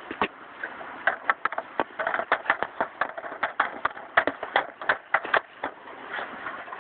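Bauer hockey stick blade tapping a puck back and forth on a plastic shooting pad while stickhandling: a quick run of sharp clacks at about four a second.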